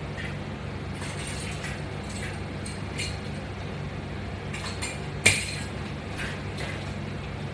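Resistance band exercise hardware clinking and clicking as it is worked: scattered light metallic clinks, with one sharper click about five seconds in, over a steady low hum.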